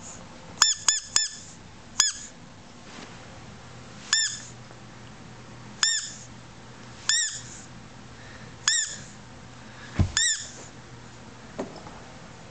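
A series of short, high-pitched squeaks, each rising and falling in pitch: three quick ones at the start, then single squeaks every second or two. A soft low thump sounds about ten seconds in.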